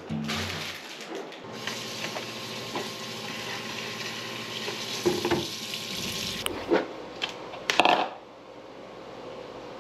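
Water running from a tap for several seconds, then shut off, followed by a few clinks and knocks, the loudest just after.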